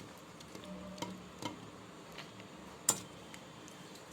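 A few light clicks and taps of things being handled in a kitchen, with one sharper click about three seconds in.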